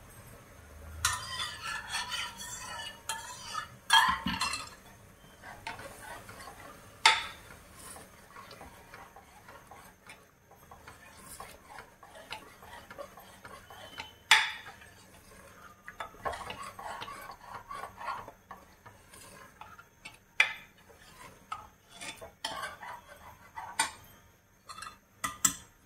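A metal spoon stirring and scraping in a cooking pot, in several bouts, with a few sharp knocks of the spoon against the pot.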